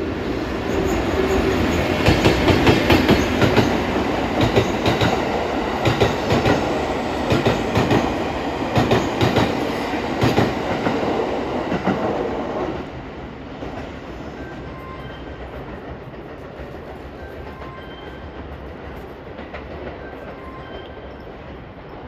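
Train wheels clattering over rail joints as an EF81 electric locomotive hauling five E231-series cars passes, the clicks coming in quick rhythmic groups. A little past halfway the clatter suddenly drops away to a quieter, fading rumble as the train clears.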